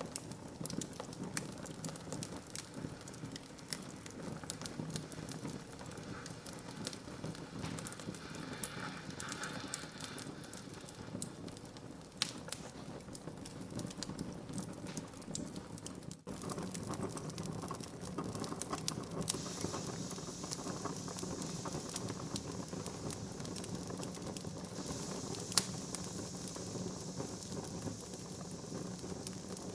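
Wood fire burning in a fireplace, crackling with many small irregular pops over a steady low hiss. One sharper pop comes about 25 seconds in.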